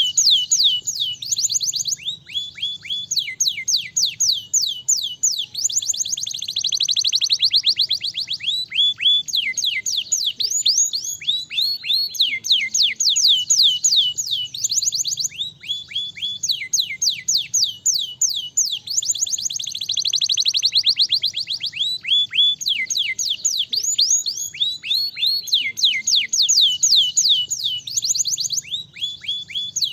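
Domestic canary singing an unbroken song of rapid repeated down-slurred notes, turning into faster, denser trills twice, about a quarter and two-thirds of the way through.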